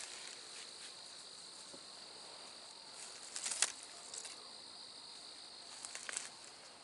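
A steady, high, faint trill of night insects, with footsteps crunching through leaf litter and brush twice, about three and a half and six seconds in.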